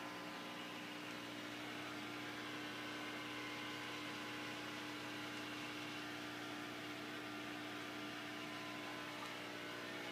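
Aquarium pump humming steadily: an even electrical drone with several constant tones over a light hiss.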